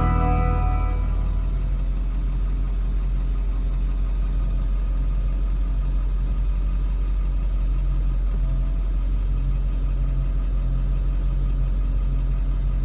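Steady low hum of an idling engine. The tail of guitar music fades out in the first second or so.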